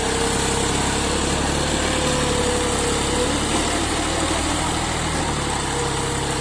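JCB 3DX backhoe loader's diesel engine running steadily, with a whine held at one pitch over an even rumble.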